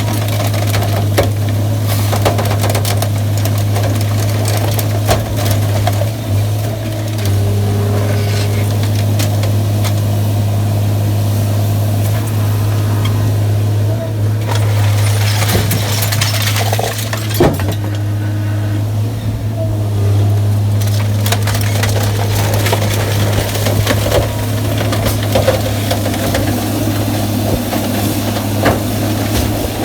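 Sierra 656SL metal shear baler running: a steady low hum from its power unit, with scrap metal clanking and crunching at irregular moments as it is compacted and sheared.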